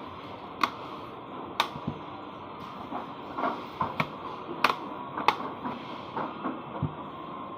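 Plastic bottom cover of an Asus laptop being fitted back on: a dozen or so sharp, irregular plastic clicks and taps as it is pressed into place, over a steady low hiss.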